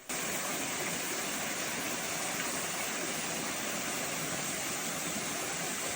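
Steady rush of water from a waterfall, an even hiss with no change in level.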